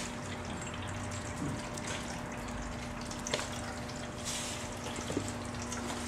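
Steady low hum over a soft hiss of room noise. A few faint light taps stand out, with a short scratchy rustle about four seconds in.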